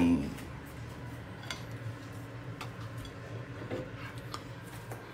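Light, scattered clicks and clinks of kitchenware, four or five in all, over a low steady hum.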